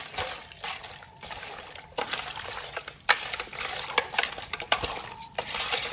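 Hands mixing raw chicken pieces through a wet spice marinade in a large metal pot: irregular wet squelching and slapping, with sharp clicks of meat against the pot.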